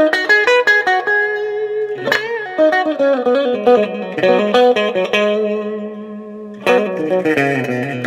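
Electric guitar (Fender Stratocaster) played through a hand-built Fender blackface Vibrolux Reverb clone amp and an open-backed bench speaker. Quick picked single-note runs, a chord struck about two seconds in with a brief wobble in pitch, a melodic line, and another chord near the end, in the twangy 'banjo' tone of the neck-and-middle pickup setting.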